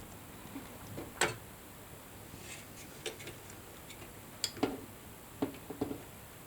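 A few sharp plastic clicks and light knocks as parts are handled inside an opened desktop PC case, while the small white plug of the CPU heatsink fan's wire is worked loose from the motherboard. The loudest click comes about a second in, with a quick cluster of lighter clicks past the middle.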